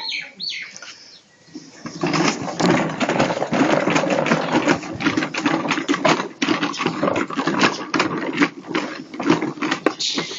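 Hard plastic wheels of a child's ride-on toy motorbike rolling over rough concrete and grit, a rapid, uneven rattling clatter that starts about two seconds in and keeps going.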